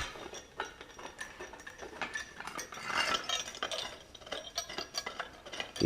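A bolt being unscrewed by hand tool: light, irregular metallic clicking and clinking of the wrench and hardware, busiest about three seconds in.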